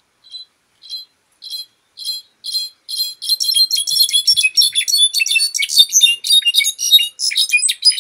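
Brown-backed solitaire (jilguero) singing. A few spaced, ringing high notes, about two a second, speed up about three seconds in into a fast, jumbled tumble of metallic notes.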